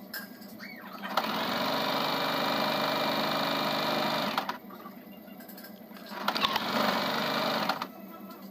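Electric domestic sewing machine stitching fabric in two runs: one of about three seconds starting a second in, then a shorter run of about a second near the end, with brief pauses between.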